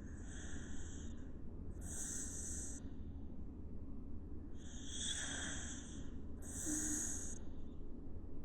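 A sleeping dog snoring softly: four hissing breaths through the nose, in two pairs about four and a half seconds apart. A steady low hum runs underneath.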